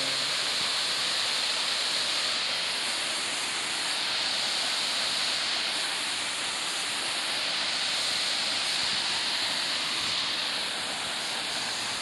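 Waterfall pouring into its pool: a steady, unbroken rush of falling water with a bright hiss.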